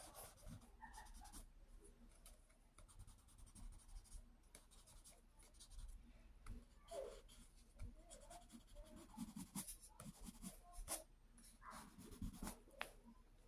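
Faint scratching and rubbing on sketchbook paper, with scattered light clicks and taps.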